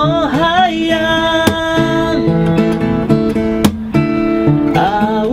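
A man singing with a wavering voice near the start and again near the end, accompanying himself on a strummed steel-string acoustic guitar.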